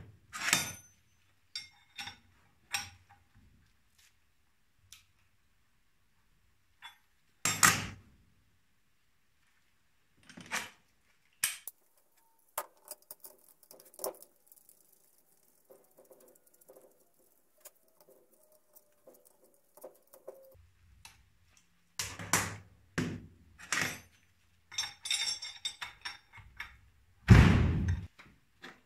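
Metal tools and Mercedes-Benz OM 615 cylinder-head parts clinking and knocking against each other and the steel workbench during assembly: scattered sharp clinks, a quieter stretch in the middle, then a rapid run of knocks with the loudest near the end.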